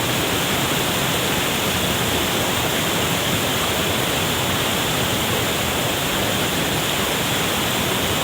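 Hill stream rushing over rocks: a steady, unbroken flow of water.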